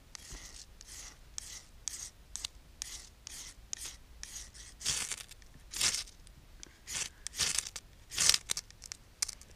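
Ferrocerium fire steel scraped hard and repeatedly with a striker, throwing sparks onto fatwood shavings to light them. It is a run of sharp rasping scrapes, about two a second, with the loudest strokes in the second half.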